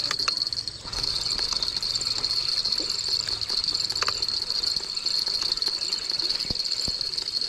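Steady, high-pitched chorus of insects droning without a break, with a few faint clicks.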